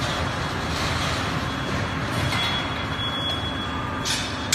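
Steady machinery noise of an MgO board production line, with a thin high whine through most of it and a brief hiss near the end.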